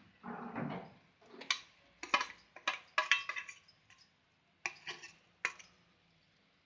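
Steel spoon scraping and knocking against a steel bowl as thick mashed banana mixture is scraped out into a frying pan. It begins with soft scraping, then comes a run of sharp metallic clinks, each with a short ring, spaced irregularly over several seconds.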